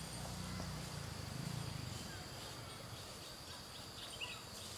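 Outdoor ambience of insects buzzing steadily at a high pitch. A faint low hum underlies the first two seconds, and a few faint chirps come near the end.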